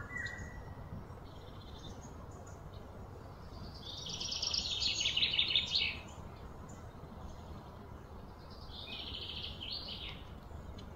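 A bird gives a rapid, high-pitched trill twice, about two seconds long about four seconds in, and a fainter one near the end. A steady low background rumble runs under it.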